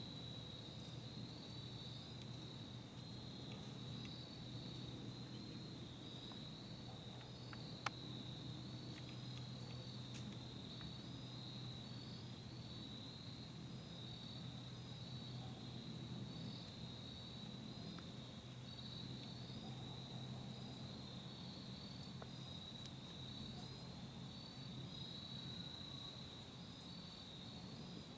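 Faint chorus of crickets, a high trill that pulses evenly and never stops, over a low steady hum. One sharp click comes about eight seconds in.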